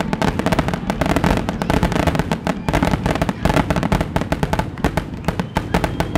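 Aerial fireworks grand finale: a rapid, unbroken barrage of bangs and crackling bursts, many shells going off each second.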